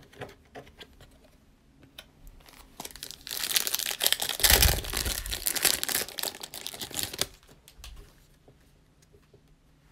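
Foil wrapper of a 2020 Panini Select Football trading-card pack being torn open and crinkled, starting about three seconds in and lasting about four seconds. Faint ticks of cards being handled come before and after.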